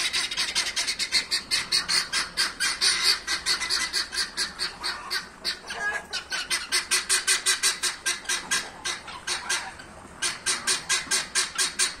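Guinea fowl on the rooftops give a fast, harsh, rhythmic rattle of about six clicks a second, with brief breaks about halfway and near the end. This is their evening alarm call, which sends the poultry flock off to roost.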